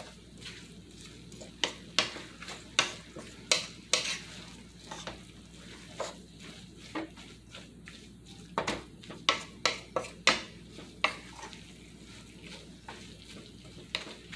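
A utensil stirring sautéed kale in an aluminium pot, knocking and scraping against the metal in irregular clacks about once or twice a second, busiest about two-thirds of the way through, over a soft sizzle from the pan.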